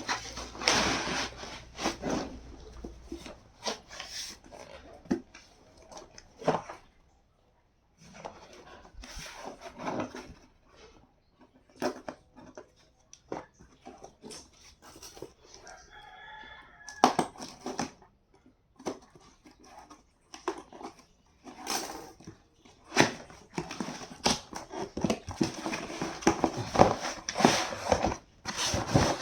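Packaging being handled and torn open by hand: irregular rustling, crinkling and clicking that comes and goes. A rooster crows once in the background about sixteen seconds in.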